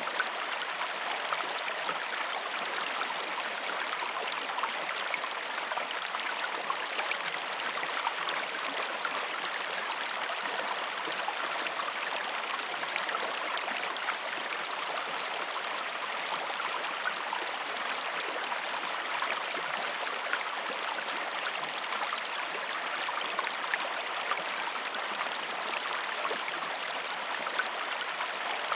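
River water flowing and babbling steadily over stones, a continuous rushing with small splashes throughout.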